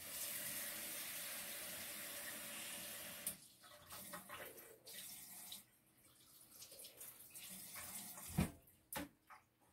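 Kitchen tap running steadily, shut off about three seconds in, followed by faint clinks and handling sounds.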